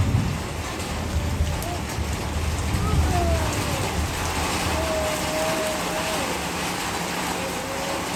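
Steady rain falling, with a low rumble that fades out over the first five seconds.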